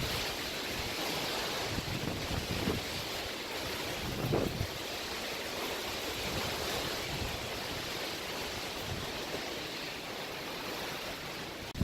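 Strong gusting wind rushing over an exposed mountain ridge and buffeting the microphone in a steady roar of noise.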